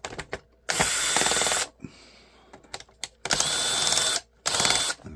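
Older cordless drill running in three short bursts, two of about a second and one of about half a second, driving out a laptop's case screws, with a few light clicks between the bursts.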